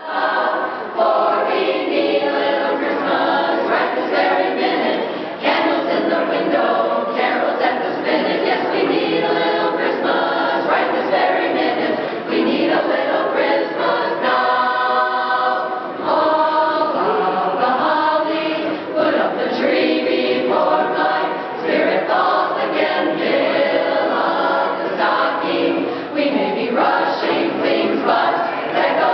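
A women's barbershop chorus singing a holiday song a cappella in close harmony, with a long held chord about halfway through.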